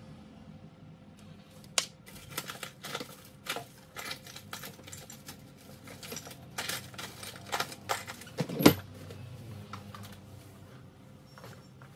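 Irregular clicks and knocks of small objects being handled and set down on a hard tabletop, with the loudest knock about nine seconds in.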